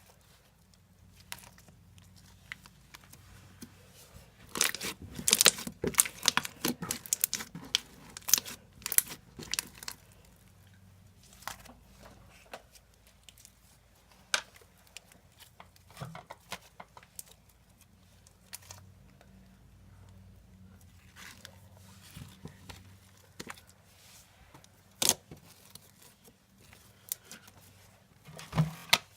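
Slime being stretched, squished and pulled apart by hand, giving crackly, tearing sounds in irregular bursts. They are busiest in the first third, then thin out to scattered pops and clicks.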